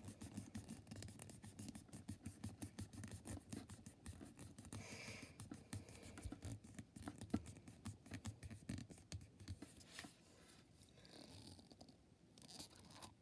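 A thumb rubbing quickly back and forth over the plastic shell of a small Hatchimals collectible egg, a faint, rapid scratching. The rubbing warms the heart mark until it turns pink, the sign that the egg is ready to crack open. The strokes die away about ten seconds in.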